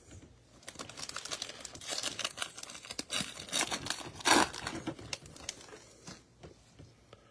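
A Panini Prizm basketball card pack's foil wrapper crinkling and tearing as it is ripped open by hand, with the sharpest rip a little over four seconds in.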